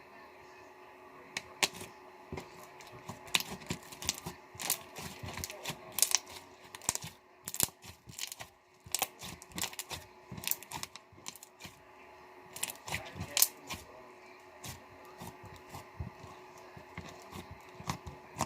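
Slime being handled and squished, making irregular sticky clicks and pops, busiest in the middle and thinning out near the end.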